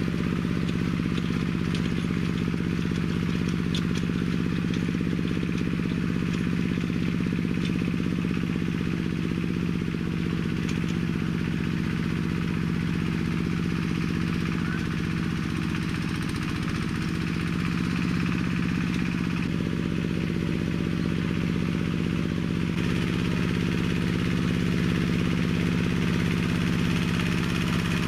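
Engine of a homemade minitractor built from a walk-behind tractor, running steadily under load as it drags cultivator tines through wet, heavy soil. The tone shifts slightly a few times.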